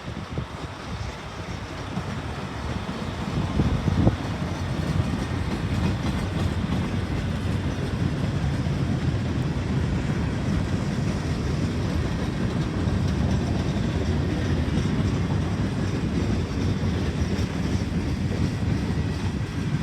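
Train rolling past on the rails, a steady rumble of wheels and cars that builds over the first few seconds and then stays loud, with one sharp knock about four seconds in.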